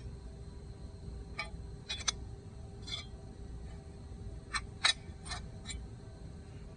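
Light clicks and taps of small hard objects being handled, about eight scattered over a few seconds with the loudest about five seconds in, over a steady low hum.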